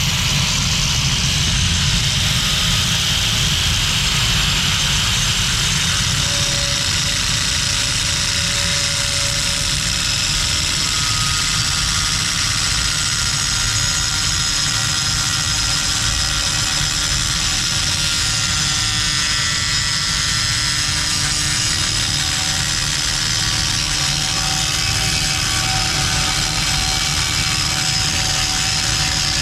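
A loud, steady mechanical roar with a deep rumble underneath, unbroken and without distinct strikes.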